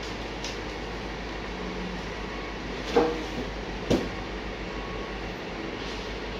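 Self-loading platform truck's machinery running steadily while it handles a steel shipping container, with two loud metal clanks about a second apart near the middle.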